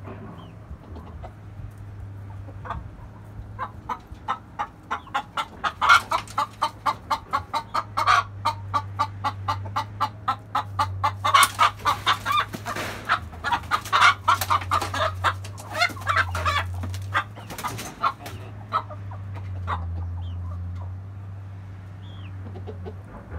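Chickens clucking: a long run of short, sharp clucks at about four to five a second that starts about four seconds in, is busiest in the middle and thins out near the end, over a steady low hum.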